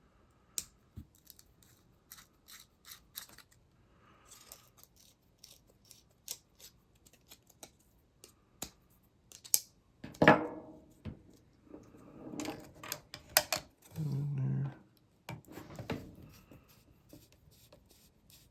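Hand body reamer being twisted through a Lexan RC car body visor to open a screw hole: a run of small clicks and scraping creaks of plastic, with a few louder rubbing and handling sounds past the middle.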